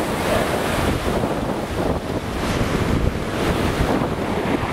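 Ocean surf breaking and washing up a pebbly beach, a steady rushing noise, with wind buffeting the microphone.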